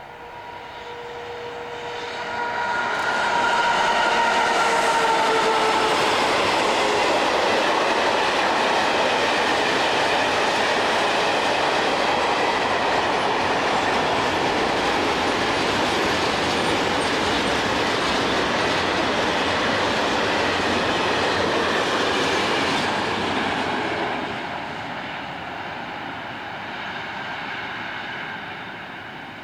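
A train passing at speed on the rails: the rumble builds over the first few seconds, with a tone that slides down in pitch as it comes by. It then runs steadily with wheel clatter for about twenty seconds and falls off near the end.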